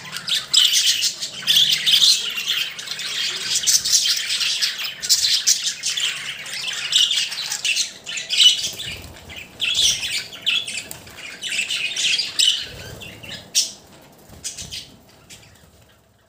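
Budgerigar chirping and warbling in rapid, high-pitched bursts with short pauses, trailing off near the end.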